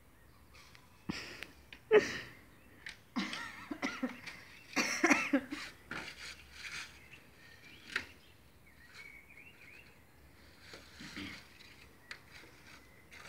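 A clear plastic packet crinkling and rustling in irregular bursts as a Tibetan terrier drags and shakes it about on grass, with a few brief pitched sounds mixed in.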